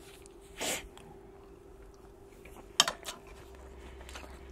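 A short, loud burst of breath into a cupped hand about half a second in, from the heat of a chili pepper just eaten. Near the three-second mark a metal spoon clinks sharply against a ceramic bowl, twice. A faint steady hum sits underneath.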